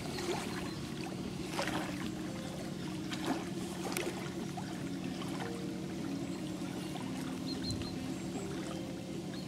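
Lake water lapping and trickling at the shore over a steady low motor hum from a boat, with a few short knocks.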